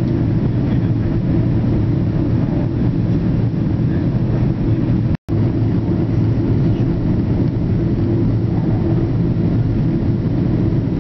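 Cabin noise inside a Boeing 777 in flight: the steady low rumble of the engines and the air rushing past the fuselage, heard from a window seat. It cuts out for a moment about five seconds in.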